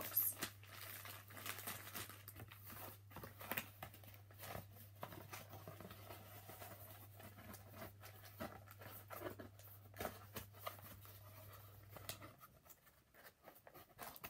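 Faint handling noises of a cardboard specimen box and a plastic bag: scattered soft taps, rustles and knocks as the bag is put in and the box is closed.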